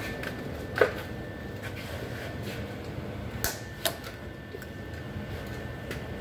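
A few sharp clicks and knocks at a pickup truck's door jamb as split PEX tubing is worked onto the metal door striker. The loudest comes about a second in and two lighter ones follow near the middle, over a steady shop hum.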